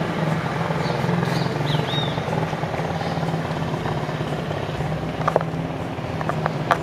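Street ambience: a steady rumble of a car engine and traffic, with a few high bird chirps about two seconds in and two sharp clicks near the end.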